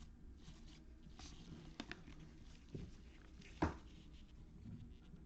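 Faint rustle and slide of trading cards being handled and flipped through, with a few light taps as cards are set down, the sharpest about three and a half seconds in.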